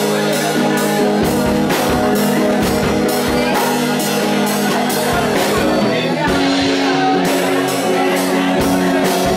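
Live band playing a rock song through a PA: electric guitar, bowed violin and a drum kit keeping a steady beat.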